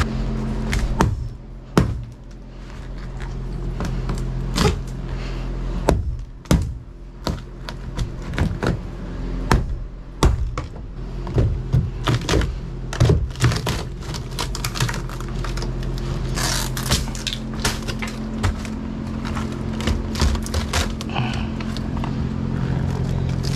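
Hammer and pry bar knocking and prying apart a boat's rotten plywood floor: irregular sharp knocks and splintering wood, with quick clusters of blows in the second half.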